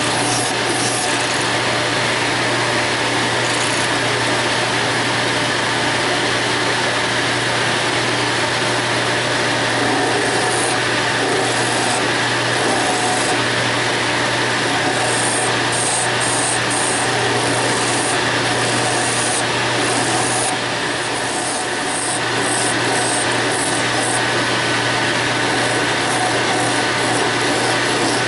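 Small sanding drum spinning in a drill press, grinding against an acrylic workpiece pressed to it by hand, over a vacuum running steadily to pull away the acrylic dust.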